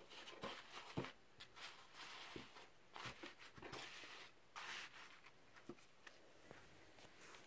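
Faint rustling of umbrella canopy nylon as it is handled and smoothed, with a few soft clicks scattered through it.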